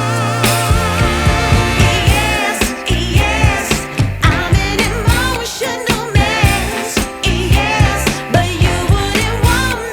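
Background pop song with a steady beat and a singing voice.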